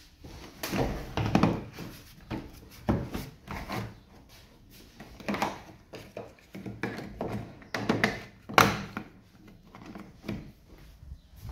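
Plastic wiper cowl panel of a Honda Civic being handled and pressed into place at the base of the windshield: irregular plastic knocks and rustles, the loudest about eight seconds in.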